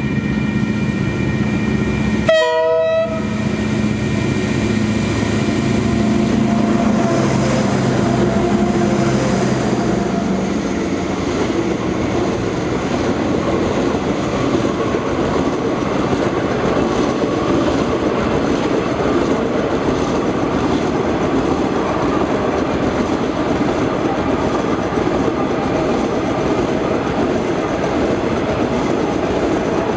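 A train of KiwiRail DL class diesel locomotives going by: a locomotive horn sounds in steady chords, with a short break in the sound about two seconds in. The horn then gives way to a steady, loud rumble of engines and of wheels on the rails as the long string of locomotives passes.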